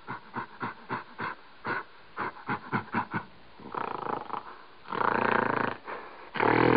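Silverback gorilla vocalizing: a rapid series of short grunts, about four a second, then longer, louder calls in the last few seconds.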